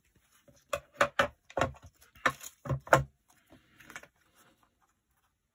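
A handheld corner rounder punch clicking sharply about eight times in quick succession as the corners of a thick paper tag are rounded, followed by softer paper rustling.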